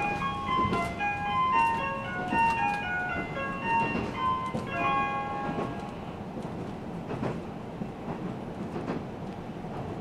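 JR Shikoku's announcement chime plays a short electronic melody over a KiHa 185 series diesel railcar's public-address speakers and stops about six seconds in. After it, the train's running noise carries on, with a wheel click over a rail joint every second and a half or so.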